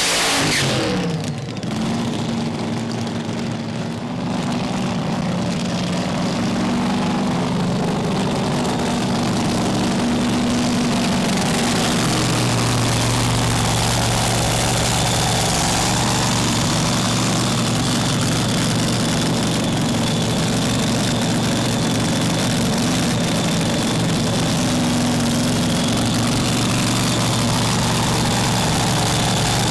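Top Alcohol Dragster's methanol-burning V8 coming off a burnout, the revs dropping away in the first second or two, then idling steadily and loudly.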